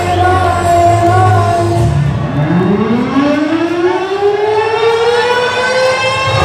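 A siren winding up: one long tone that rises steadily in pitch for about three seconds, then levels off and holds. For the first two seconds a song with singing and a steady bass plays, and it stops as the siren begins.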